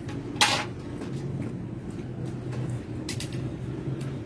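Short clicks and knocks of a bicycle's hydraulic brake lever being handled and fitted to the handlebar, a sharp one about half a second in and another around three seconds in, over a steady low hum.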